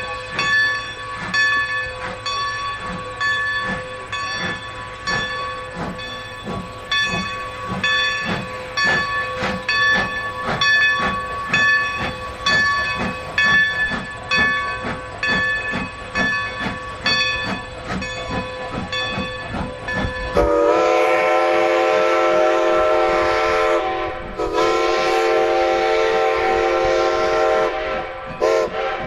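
Baldwin 2-10-0 steam locomotive No. 90 working under load, its exhaust beating in a steady rhythm. About two-thirds of the way through, its steam whistle sounds two long blasts and a short one, then starts another long one: the long-long-short-long grade-crossing signal.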